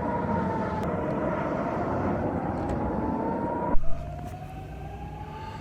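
Civil-defence air-raid siren sounding a rocket-attack warning, one slowly rising and falling wail over a noisy background. About four seconds in the level drops abruptly with a sharp click, and the siren goes on fainter, rising.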